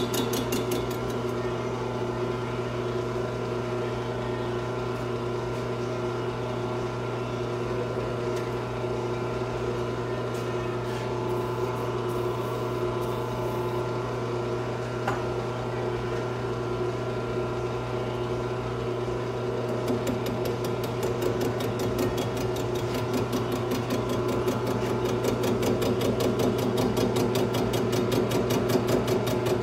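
Metal lathe running steadily with a low, even hum, turning a chainsaw cylinder during a slow final facing cut on its base. From about two-thirds of the way through the sound grows busier and a little louder.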